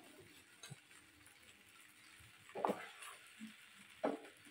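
A few short, faint scrapes and taps of a metal spatula against a china plate and a frying pan as scrambled egg is pushed into the noodles. The clearest strokes come about two and a half seconds and four seconds in.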